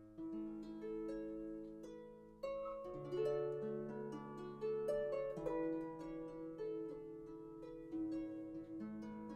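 Background music: a harp playing a gentle melody with plucked chords, each note ringing and fading.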